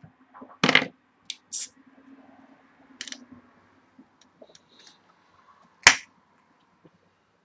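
A few sharp knocks and clicks of objects being handled and set down on a table, the loudest about six seconds in.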